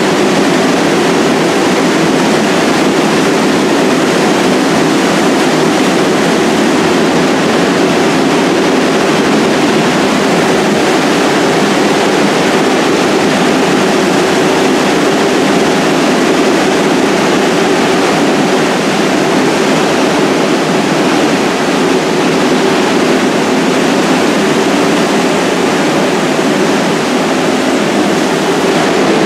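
Steady, loud rushing hum of a subway train standing in an underground station with its equipment running, unchanging throughout with no horn, brakes or movement.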